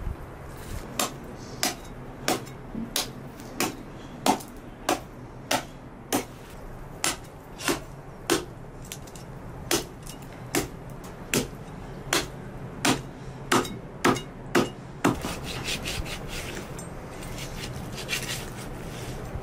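A cleaver chopping through lamb ribs on a wooden board: about twenty sharp, even strokes, roughly three every two seconds. The strokes stop about fifteen seconds in, giving way to softer, continuous knife cutting between the ribs.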